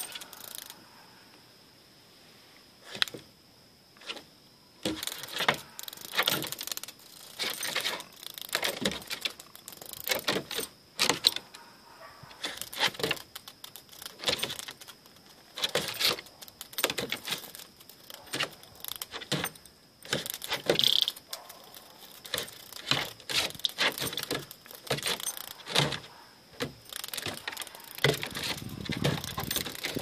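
A Boston terrier's metal collar tags jingling and clinking in irregular bursts as the dog moves about and noses at the cicada, with clicks of its claws on the deck boards.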